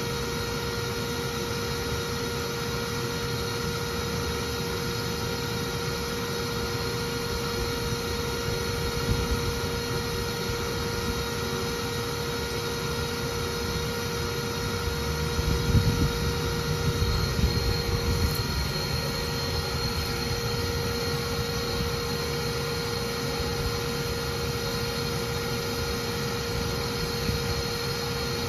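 Bee vacuum running steadily, a motor drone with a steady whine, its hose held at the opening of an electrical box to suck up bees as they come out. The low rumble swells for a few seconds about halfway through.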